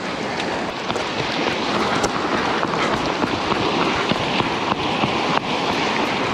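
Wheeled metal fishing cart rolling over a concrete walkway: a steady rattling rumble with many small clicks and knocks.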